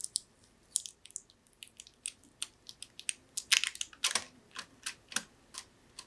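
A plastic spudger clicking and scraping against a hard drive as a piece of tape is pried up and peeled off. The small, irregular clicks and crackles come thickest about three and a half to four seconds in.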